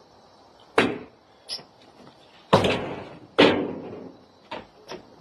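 A few sharp knocks and bangs. The loudest comes about two and a half seconds in, another about a second later, with lighter taps between them.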